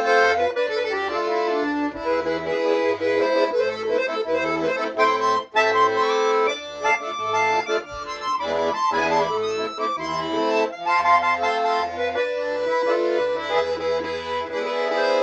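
Shuya-made Romans bayan, a Russian chromatic button accordion, playing a melody on the right-hand keyboard over a steady bass-and-chord accompaniment from the left hand.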